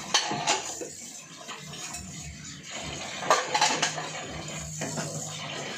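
Dishes and metal cutlery clattering as they are handled at a kitchen counter, in a burst right at the start and a louder one about three seconds in, over a steady low hum.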